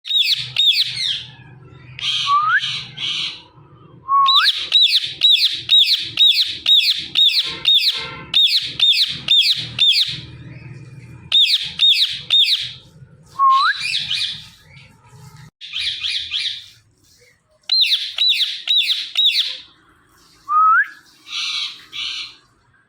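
Female Indian ringneck parakeet giving its natural shrill calls: runs of sharp, repeated screeches about two or three a second, broken by short pauses, with some harsher squawks and a few short rising whistles in between.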